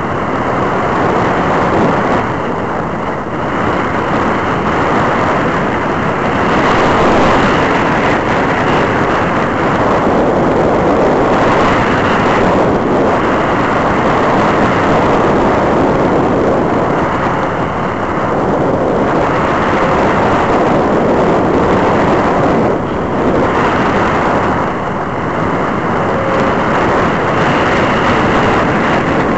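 Powered glider in flight heard through its onboard camera: a loud, even rush of air over the microphone, with a faint high whine that comes and goes and a few brief dips in level.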